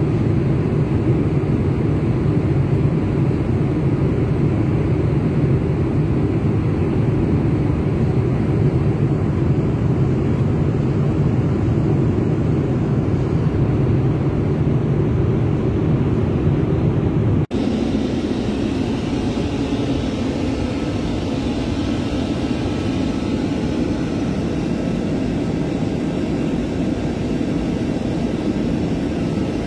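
Steady, even roar of an airliner's engines. About 17 seconds in it cuts abruptly to a similar roar with more hiss.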